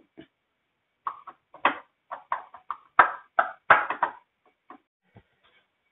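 Metal spoon clinking and scraping against a ceramic bowl while stirring a thick masala paste: a run of short, irregular knocks that starts about a second in and stops a little past four seconds.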